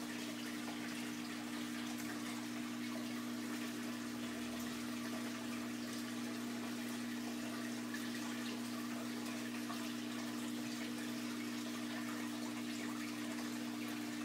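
Reef aquarium's pump and circulating water running: a steady wash of moving water over a constant low hum.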